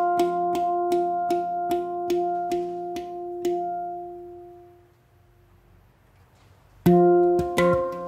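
F Equinox 10 handpan played with the fingers: a run of quick struck notes ringing over one another, then left to ring out and fade almost to silence about five seconds in. Near the end a loud stroke opens a new phrase of notes.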